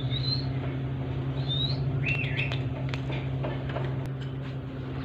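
A few short, high rising bird chirps and a brief wavering whistled call, with scattered sharp clicks from a parakeet's beak crunching a green chilli in the second half, over a steady low hum.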